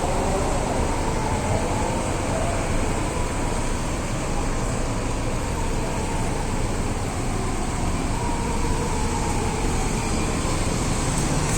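Steady road traffic and engine noise, with a police car siren faintly wailing in slow rising and falling glides. The siren is a foot-pedal type, sounding while the front passenger presses the pedal.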